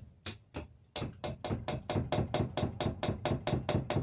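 Measuring cup rapped against a stainless steel mixing bowl to shake out thick sweet potato puree: one sharp knock, two more, then from about a second in a quick, even run of knocks at about five a second.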